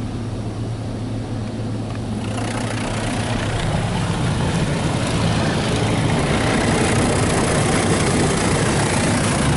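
Ryko Softgloss Maxx 5 rollover car wash spraying the pre-wash onto a pickup, heard from inside the cab. Over a steady low hum, a hiss of water spray starts about two seconds in and builds louder.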